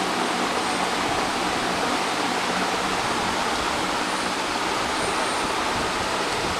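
Steady, even rushing noise with a faint low hum underneath, holding one level throughout; no chewing or other distinct sound stands out.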